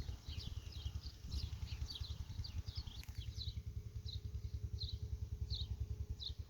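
A small bird calling over and over with short, high, falling chirps, quickly at first and then about one a second, over a low, uneven rumble.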